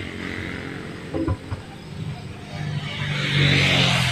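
A motor vehicle engine running nearby, its sound swelling about two and a half seconds in, with a few sharp knocks a little after one second in.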